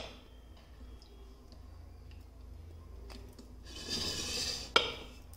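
A steel plate of boiled gram-flour rolls being handled: a small click at the start, a brief rushing noise about four seconds in, then a sharp clink as the plate is set down.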